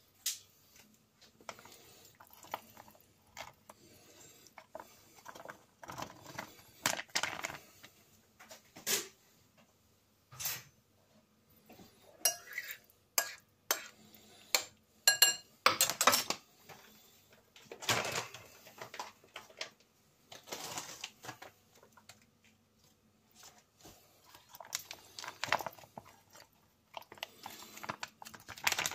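A metal spoon scraping and clinking against a ceramic bowl as wet, saucy ration meals are scooped and squeezed out of foil pouches. The clicks and scrapes come in irregular clusters; one sharp clink about halfway through rings on briefly.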